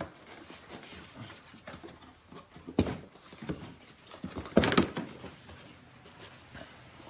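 Plastic engine cover of a Lexus RX350 being pulled up off its mounts, with scattered knocks and handling noise. The loudest knocks come a little under three seconds in and again at about four and a half seconds.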